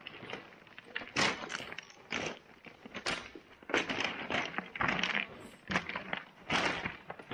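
Irregular crunching and scraping steps on ice and rock, in uneven runs with several louder scrapes.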